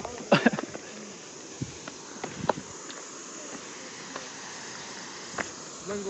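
Insects chirring steadily in a high, even hiss, with scattered footsteps and knocks on a stony path. The loudest are a few sharp knocks about half a second in.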